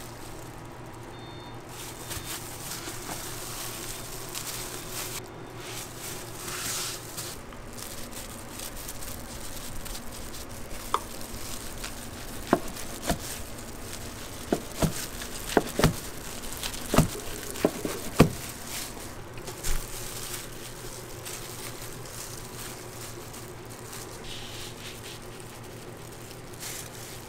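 Kitchen knife slicing a rolled kimbap and striking a plastic cutting board: a quick run of about a dozen sharp knocks in the middle, over a steady background hum.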